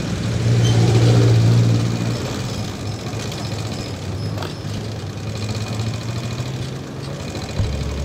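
Motorcycle engine running at low road speed, growing louder as the bike pulls away about half a second in, then settling to a steady hum.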